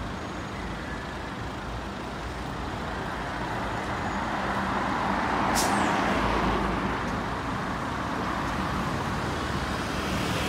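City street traffic: cars and a trolleybus running past, a steady rumble that swells to its loudest a little past halfway, where a brief sharp hiss cuts through.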